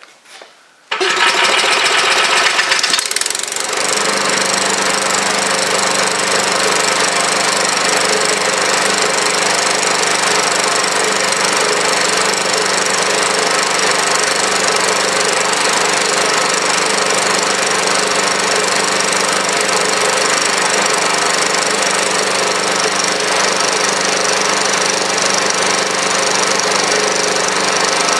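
Small engine in standard trim, without HHO, started about a second in. It runs ragged for a couple of seconds, then settles to a steady, even run at its set speed while driving a generator load.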